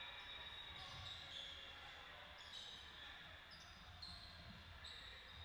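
Faint sounds of a basketball game in a gym: repeated short high squeaks of sneakers on the court, with the ball bouncing.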